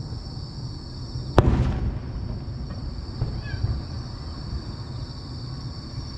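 A single aerial firework shell bursting about a second and a half in: one sharp bang with a rumbling echo trailing after it. A steady high-pitched drone continues in the background.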